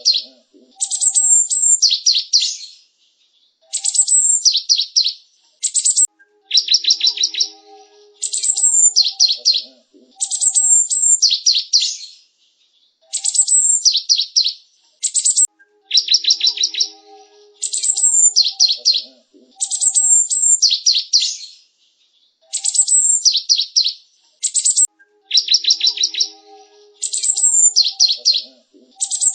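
Cinereous tit (gelatik batu) singing: phrases of rapid, high chirps and trills, each about a second long, repeated every couple of seconds with short pauses between.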